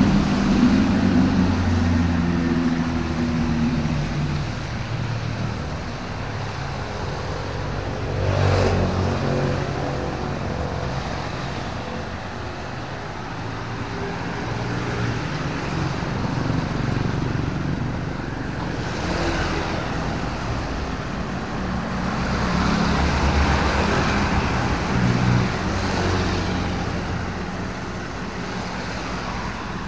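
Motor vehicles passing, engine hum and tyre noise swelling and fading several times over a steady background hiss.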